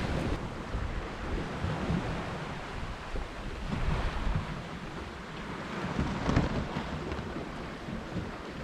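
Wind buffeting the microphone over the wash of sea water, heard aboard a sailing yacht under way, rising and falling in gusts.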